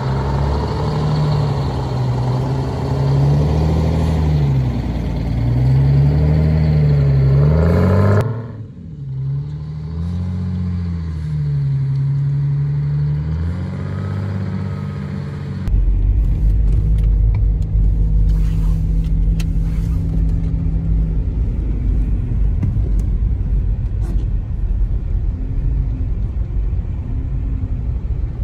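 Bus diesel engine revved up and down over and over, its pitch rising and falling every couple of seconds. About halfway through the sound changes abruptly to a steady low rumble.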